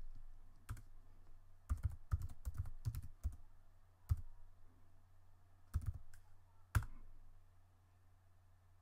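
Computer keyboard keystrokes entering a login at a terminal: a quick run of taps, then a few single key presses spaced a second or so apart, over a faint low hum.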